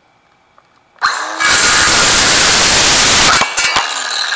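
Ryobi cordless circular saw starting about a second in and cutting through a scrap 2x4 for about two seconds, then cutting off and winding down. A quick trim cut to square the board's end.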